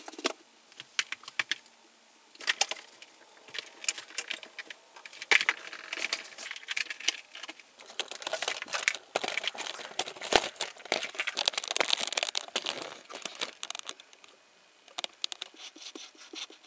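Handling noise: irregular clicks, taps, clatters and rustles of small objects being set down and shifted on a table and the camera being moved, busiest through the middle and thinning out near the end.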